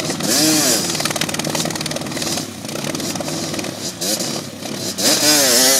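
ATV engine running and revved in two short bursts, about half a second in and again near the end, as its wheels spin in deep mud: the quad is stuck.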